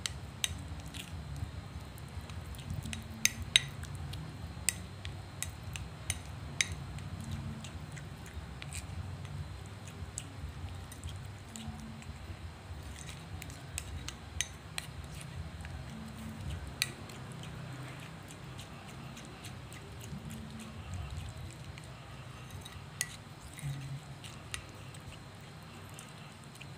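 Metal utensil stirring a thick paste in a ceramic bowl, with frequent irregular clinks and scrapes of the metal against the bowl.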